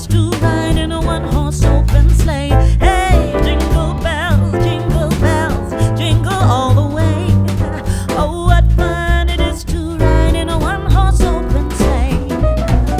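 Background pop song with a sung vocal line over bass and a steady beat.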